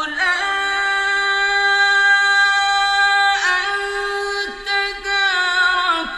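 A male reciter's solo voice in melodic Quran recitation holds one long note for about three seconds, then moves on through ornamented turns in pitch.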